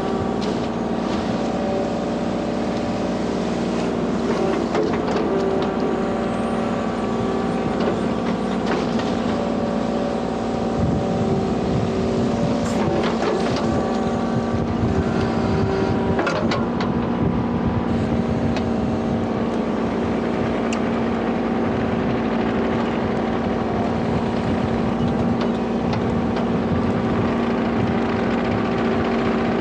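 Kubota U35-4 mini excavator's diesel engine running steadily while it drives an Express Steel hydraulic brush cutter, a constant machine drone. A few sharp clicks and knocks come through about halfway in.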